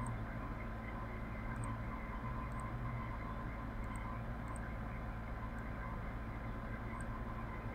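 Steady low hum and hiss from an open recording microphone, with a few faint short ticks scattered through.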